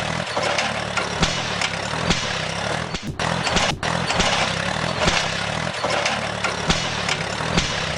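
A motor running steadily and noisily, with a sharp knock about once a second. The sound breaks off briefly twice, a little past the middle.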